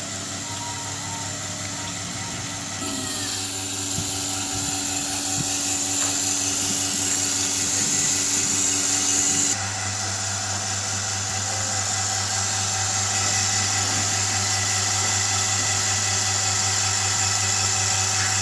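Milking machine's vacuum pump motor running steadily with a constant hum; its tone shifts abruptly at about three seconds in and again at about nine and a half seconds in.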